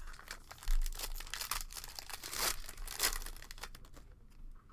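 Crinkly wrapper being torn and crumpled by hand, the sound of a trading-card pack being opened, in a run of irregular crackles that peaks about two and a half seconds in.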